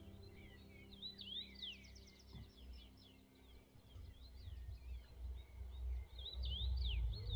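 Small birds chirping in quick rising and falling notes, in a cluster about a second in and another near the end, over a low rumble that grows louder toward the end. Soft sustained ambient music fades out in the first few seconds.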